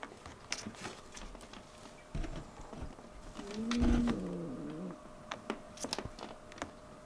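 A house cat giving one low, drawn-out growling yowl of about a second and a half near the middle, a wary reaction to a new kitten at the door, among scattered light clicks and taps.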